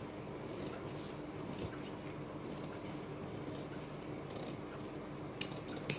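Large tailor's shears snipping through cotton kurti fabric and the buckram facing along a stitched neckline: faint, irregular cutting strokes over a steady low hum, with one sharper click near the end.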